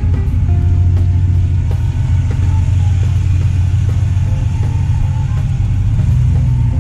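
Background music with short melodic notes over a deep, steady low rumble.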